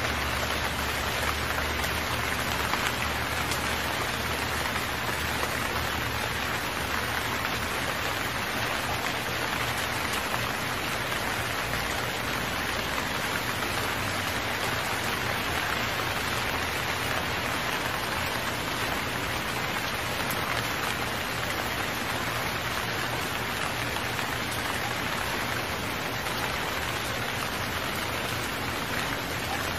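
Steady rain falling: an even, continuous hiss of rain with no thunderclaps.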